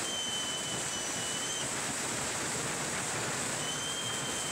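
Indoor ice rink ambience during play: a steady, even hiss of arena noise. Two long, high, steady tones sound over it, one lasting about a second and a half at the start and another starting about a second before the end.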